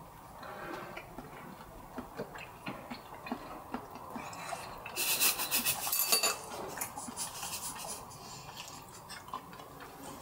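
Chopsticks clicking against ceramic bowls and plates as people eat, with a louder crackling rustle about five to six seconds in.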